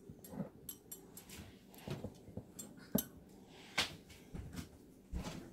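Scattered light knocks and clicks of the phone being handled and propped up on a kitchen counter, with two sharper knocks about three and four seconds in.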